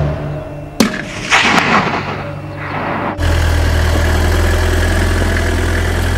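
A sharp crack about a second in, followed by a short noisy rush. From about three seconds in, the engine of an open-topped 4x4 running steadily with a low hum.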